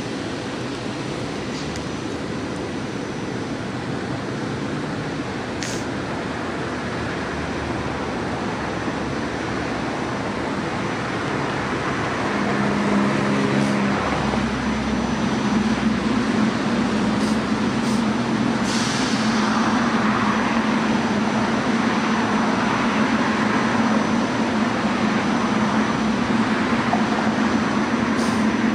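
Train running by: a steady rumble that grows louder over the first twelve seconds or so, then holds, with a low hum setting in about twelve seconds in.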